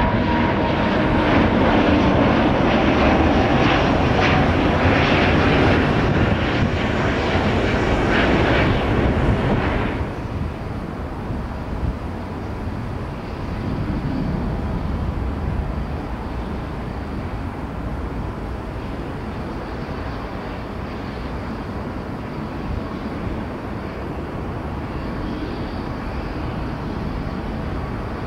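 Jet roar from a British Airways Airbus A380-800 on its takeoff run, loud and broad, cutting off abruptly about ten seconds in. It gives way to a quieter, steady jet engine rumble from a United Boeing 777-300ER at the start of its takeoff sequence.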